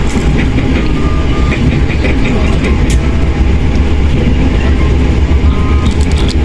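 Moving train: a loud, steady low rumble with scattered faint clicks from the running gear.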